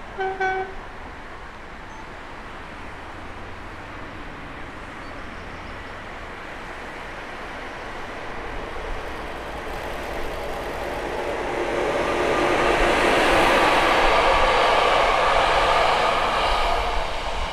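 DR class 211 electric locomotive hauling passenger coaches passes by on the rails. Its running and wheel noise grows from about halfway in to a peak in the last few seconds, then starts to fade. A short tone sounds right at the start.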